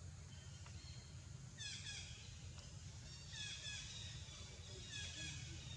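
A bird calling in three short bursts of quick, falling high notes, about a second and a half apart, over a low steady rumble.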